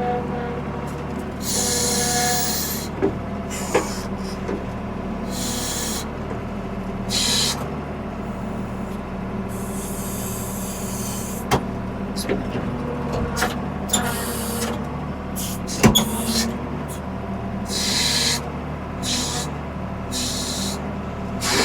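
Diesel engine of a 1975 Ford 550 backhoe running at a steady speed, with several short bursts of hiss and scattered sharp knocks, one loud knock about 16 seconds in.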